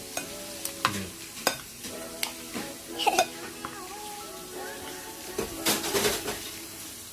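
A metal spoon stirring pasta shells in a glass bowl, clinking and scraping against the glass at irregular moments, over soft background music with a slow melody.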